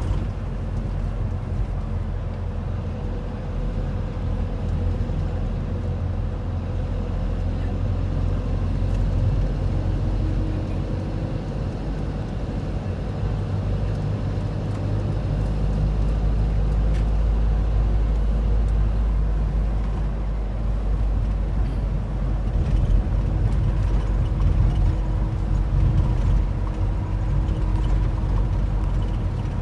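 A bus's engine and tyre noise heard from inside the cabin while driving: a steady low drone that grows heavier about halfway through.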